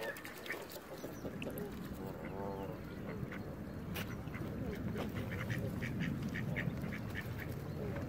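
Waterfowl calling on a pond: Canada geese and ducks give honks and quacks. One stacked call comes about two and a half seconds in, and a quick run of short high calls comes between about five and seven seconds in, over a steady low rumble.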